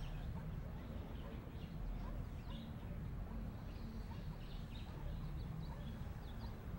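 Faint, scattered chirping of small birds over a low, steady background hum.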